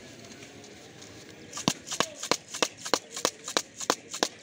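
Chanachur mix shaken hard in a closed plastic cup, the dry pieces rattling against the plastic in a steady beat of about three shakes a second, starting about a second and a half in.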